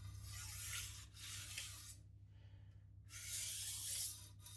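Knife edge being drawn across a whetstone with light pressure to deburr it: three hissing, scraping strokes, the second shorter, with a pause of about a second before the last.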